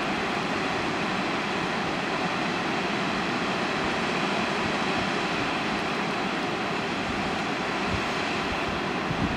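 Waterfall pouring down stepped rock ledges: a steady, even rush of falling and splashing water.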